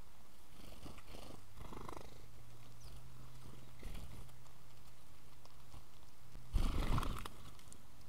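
House sparrows feeding at a seed tray right by the microphone: soft pecking and rustling in the seed over a steady low hum. About six and a half seconds in, a loud, jagged flurry of wingbeats as several birds fly off the tray.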